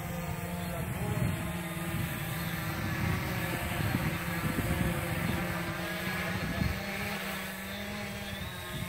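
Quanum Spider 700 multirotor drone flying overhead: the steady buzzing whine of its electric motors and propellers, the pitch wavering up and down slightly as it manoeuvres.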